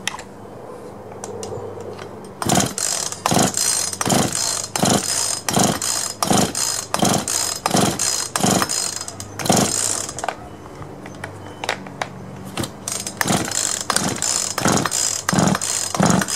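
Poulan two-stroke chainsaw's recoil starter being pulled over and over, the engine cranking without firing, with a compression gauge in the spark plug hole for a compression test. About one pull every 0.75 s in two runs, with a pause of about two seconds between them.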